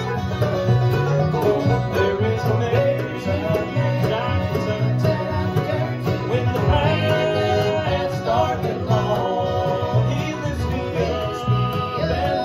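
Bluegrass band playing live: banjo, fiddle, acoustic guitars and upright bass, with the bass keeping a steady beat.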